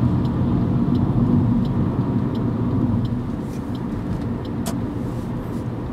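Steady low rumble of a car driving on a city road, engine and tyre drone heard from inside the cabin, easing slightly about three seconds in, with a few faint ticks.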